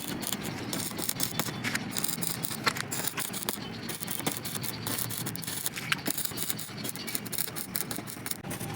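Steel fabrication work on a diamond-pattern grille: an irregular crackle of sharp clicks, light rattles and scrapes over a steady low noise.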